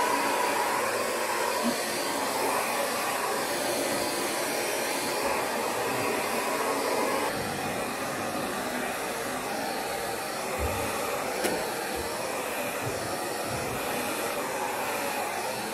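Small corded handheld vacuum run over fabric drapes, its fan motor running steadily with a continuous rush of air.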